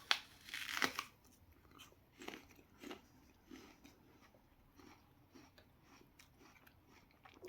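A person biting into a raw apple, with a loud crunch right at the start and another about a second in, then chewing it with softer, irregular crunches.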